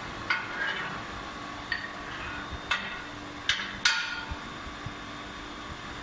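Five sharp metallic clinks and knocks in the first four seconds, each ringing briefly, as metal pieces are handled, over a steady machine hum.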